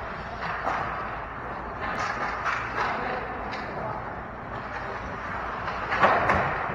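Ice hockey play: skates scraping across the ice, with several sharp clacks of sticks on the puck. The loudest comes about six seconds in.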